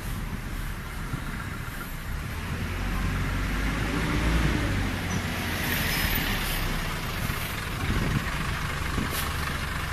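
Dense street traffic: engines of buses and cars running in slow, congested traffic, with a steady low rumble. The rumble swells about three to five seconds in, and a hiss comes about six seconds in.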